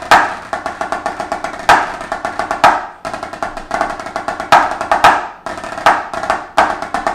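Drumsticks played on a white laminate-topped drum practice pad: quick strokes and short rolls punctuated by louder accented hits, with a hard, bright knocking tone. The playing breaks off briefly about three seconds in and again near five and a half seconds.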